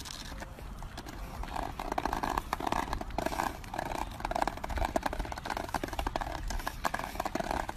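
Plastic leash handle scraping and clattering along asphalt as it drags under a walking dog: a run of irregular clicks and scrapes over a low outdoor rumble.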